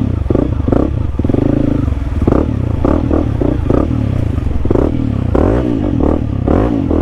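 Honda CRF300L's single-cylinder four-stroke engine revving up and down again and again as the throttle is opened and eased while the bike works through mud, with some clatter from the bike.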